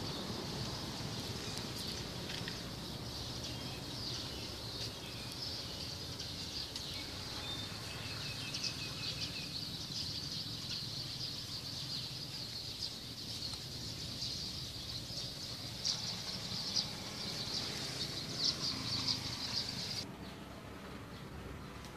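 Small birds chirping in a dense chorus over a steady low background rumble; the chirping cuts off suddenly near the end.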